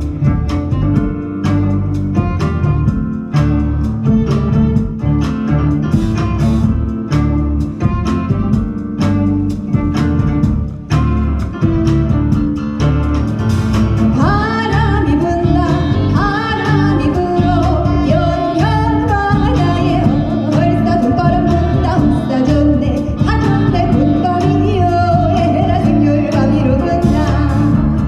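Music with string instruments over a steady rhythmic pulse; about halfway through, a sung melody line comes in over it.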